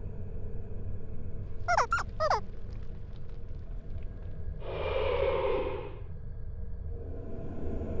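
Three quick high-pitched squeaks, each falling steeply in pitch, about two seconds in, followed a couple of seconds later by a breathy gasp lasting just over a second, over a low steady drone.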